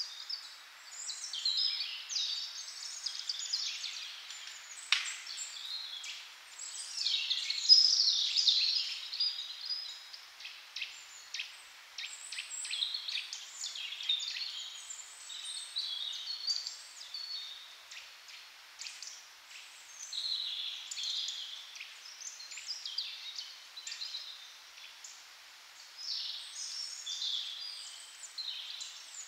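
Small songbirds chirping and singing, with many quick sharp clicks scattered among the calls.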